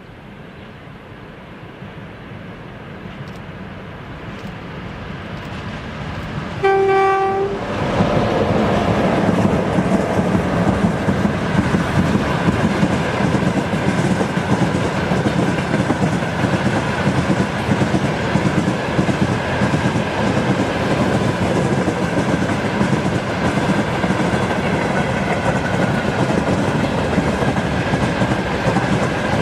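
A 2ES6 "Sinara" electric locomotive hauling a freight train comes closer, growing louder, and gives one short horn blast about seven seconds in. It then passes, and the wagons roll by with loud, steady wheel-on-rail noise.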